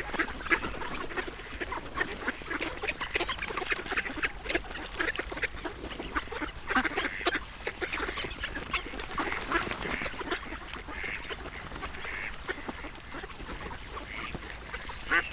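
Ducks quacking and chattering steadily while being fed, many short calls overlapping.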